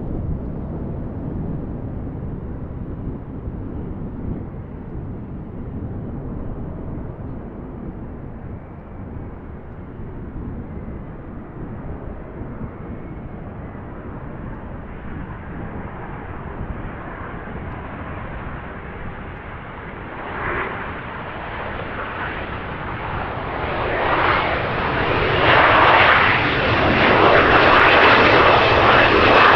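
Mitsubishi CRJ-900 regional jet approaching, the rush of its twin GE CF34 turbofans growing steadily louder over the last several seconds, with a high whine coming through near the end. Before that, a low wind rumble on the microphone dominates.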